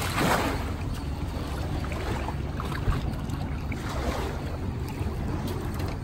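Kawasaki STX-15F jet ski's engine idling low and steady at the water's edge, with water washing around it; a short whoosh near the start and another about four seconds in.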